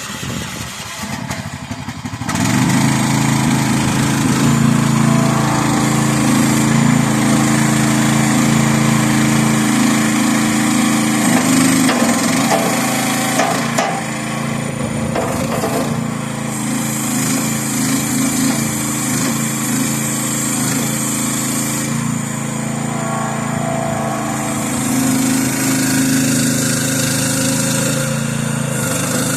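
The 15-horsepower gasoline engine of a ride-on skid steer loader running; it is throttled up about two seconds in and then runs fast and steady, its level dipping and rising a little at times as the machine is driven forward and back and turned.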